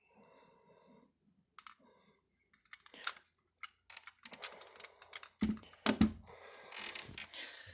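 Small clicks, clinks and light knocks of die-cast toy tractors being handled on a shelf. Sparse at first, then a busier stretch of rustling and knocking from about four seconds in, loudest around the sixth second.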